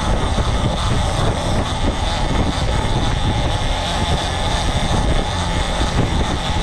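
Outboard motor of a small boat running steadily under throttle, with water rushing and splashing off the hull as the boat drives across the chop.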